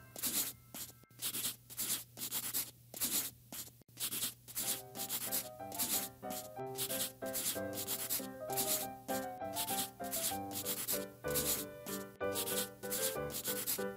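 A scribbling sound effect for colouring in: rhythmic scratchy rubbing strokes, about two a second. Light background music with a plucked-sounding melody comes in about four and a half seconds in.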